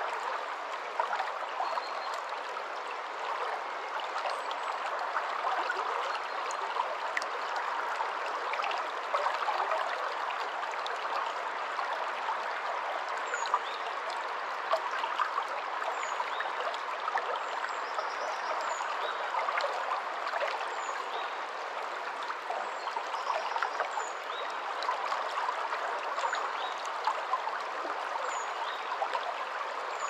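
Shallow rocky stream flowing over stones: a steady rush of water with small gurgles. Faint, short, high falling notes repeat every second or two through the second half.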